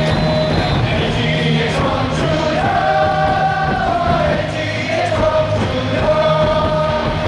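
Korean baseball cheer song: amplified music with a crowd singing along in unison, counting 'one, two, three, four' and then chanting the batter's name.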